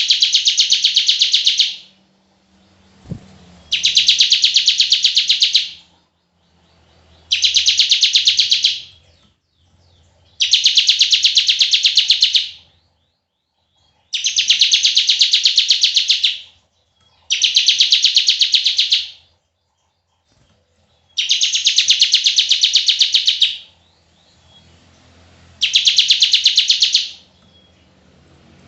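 Bar-winged prinia (ciblek) giving its long 'bren' song, a rapid trill of fast repeated notes in phrases of about two seconds, separated by short pauses, eight phrases in all. A single short knock sounds about three seconds in.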